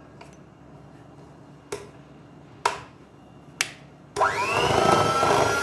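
Three sharp clicks about a second apart, then an electric hand mixer switches on about four seconds in. Its motor whine rises quickly and settles into a steady hum as the beaters mix buttercream.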